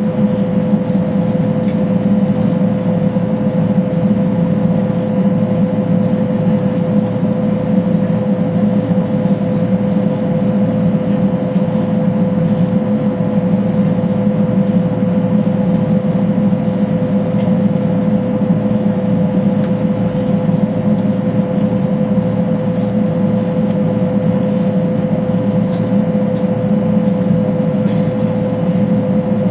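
Boeing Jetfoil's gas-turbine waterjet propulsion heard inside the passenger cabin: a loud, steady drone with a constant mid-pitched whine running over it.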